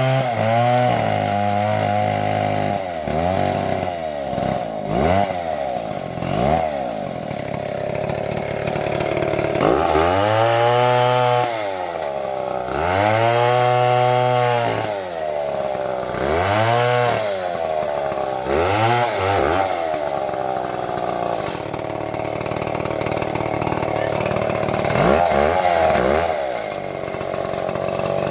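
Two-stroke chainsaw revved hard again and again, its pitch climbing and falling with each throttle squeeze. The longest full-throttle runs come about ten and thirteen seconds in, and between them the saw drops back toward idle.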